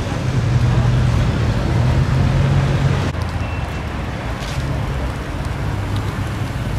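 Sports-car engine idling in street traffic, a steady low hum. About three seconds in it cuts to a Ferrari 488's twin-turbo V8 running at low revs as the car rolls slowly by.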